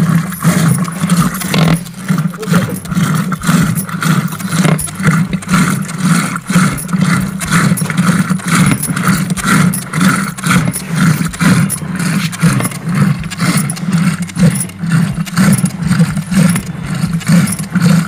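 Wooden churning stick twirled back and forth by a rope in a clay pot of curd and water, knocking and sloshing in a steady rhythm about twice a second over a steady low hum. It is churning curd into buttermilk until the butter separates.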